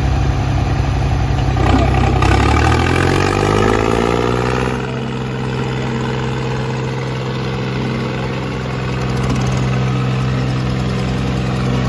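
Diesel tractor engines of a John Deere 5050 and a New Holland 3630 running hard under load, the two tractors chained together pulling against each other. The engine pitch rises between about two and five seconds in, then holds steady.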